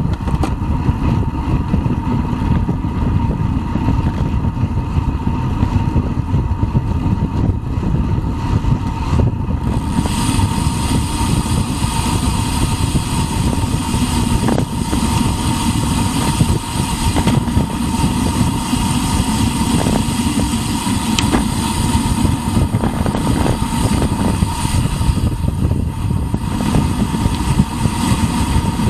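Wind buffeting the microphone of a bicycle-mounted camera on a fast downhill run, over the hiss and rumble of the tyres on asphalt. A brighter hiss joins about ten seconds in, and a faint steady tone sits underneath.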